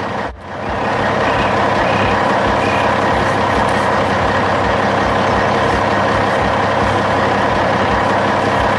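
Heavy dump truck engine running steadily, with a low, even chugging pulse underneath.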